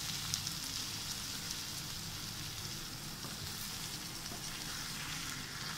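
Butter bean and potato masala sizzling steadily in a pan as ground coconut paste is stirred into it with a spatula.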